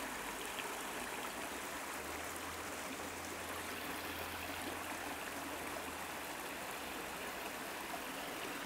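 A forest stream running with a steady rush of flowing water.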